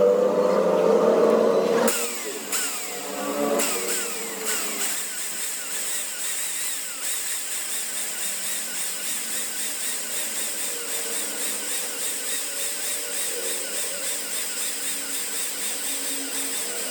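A power tool working on metal: louder with a squealing tone for the first two seconds, then running on with an even pulsing about twice a second.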